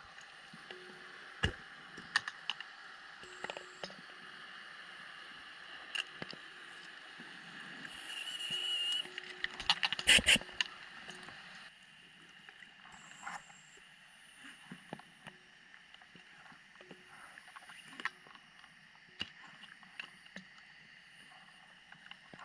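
Underwater sound of a diver's gear heard through a camera housing: a steady faint hiss with scattered clicks and taps, a short hiss about eight seconds in, and a cluster of louder knocks about ten seconds in.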